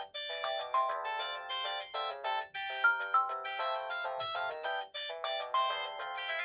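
Samsung E1210M mobile phone playing a polyphonic ringtone: a quick melody of short, bright notes.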